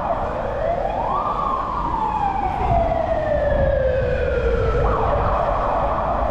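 Emergency vehicle siren: a rapid yelp switches to one slow wail that rises for about a second and falls over the next few seconds, then goes back to the rapid yelp near the end. A low rumble of road traffic lies underneath.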